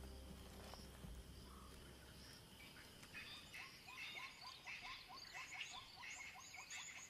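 Faint birdsong of a dawn chorus: several birds calling, with one giving a quick run of short chirps, about three a second. It begins about three seconds in, after a low hum fades out.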